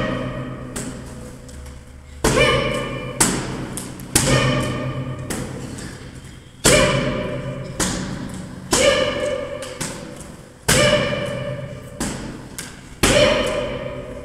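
Kicks striking padded karate focus mitts: about ten sharp slaps, one to two seconds apart and often in pairs, each followed by a long ringing echo that dies away slowly.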